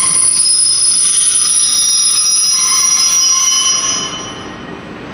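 A train's wheels squealing on the rails, several high steady tones over rumbling noise, which fade away about four seconds in.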